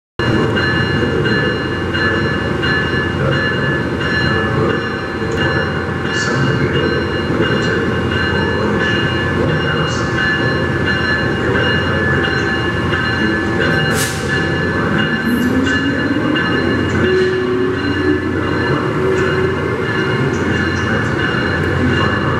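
Amtrak ACS-64 electric locomotive hauling Amfleet coaches out of the station: a steady electrical whine with several high tones over a low rumble. About two-thirds of the way through, a lower whine rises in pitch as the train pulls away, and the coaches roll past with occasional clicks.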